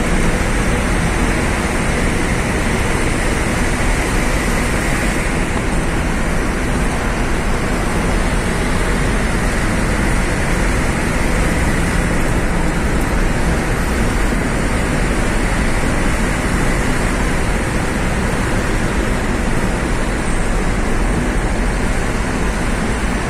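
Steady, loud road noise of a vehicle driving through a road tunnel, heard from inside the cab: engine and tyre noise with a deep low rumble, with a truck running just ahead.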